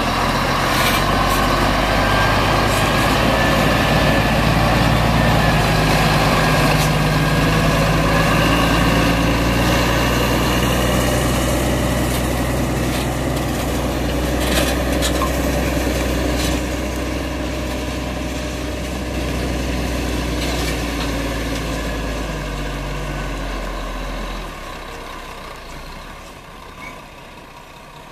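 Scania R-series semi-truck with a loaded grain trailer, its diesel engine running as it drives slowly past at close range. The engine is loudest early on as the cab passes, then drops away a little before the end as the truck pulls off across the yard.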